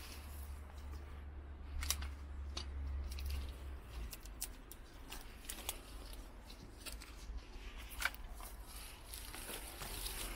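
Footsteps crunching on grit and debris, a string of irregular sharp crunches with the loudest about two seconds in and again about eight seconds in. A low rumble runs under the first few seconds.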